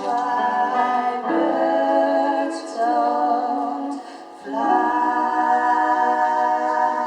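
Singing: vocal music in long held notes, in three phrases with short breaks between them.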